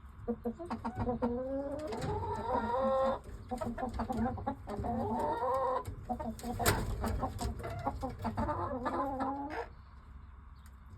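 Dominique chickens clucking, with several drawn-out calls that rise in pitch and a sharp click about two-thirds through; the calling stops near the end.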